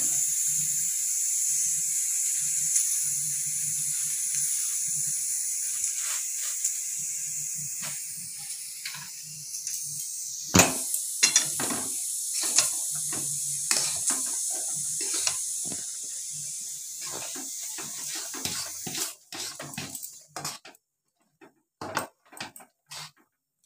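A metal spatula scraping and knocking against an aluminium kadai, in many short strokes, as rice flour is stirred into hot water to cook it into dough. For the first half there is a steady hiss from the pot on the stove, which stops about three-quarters of the way through.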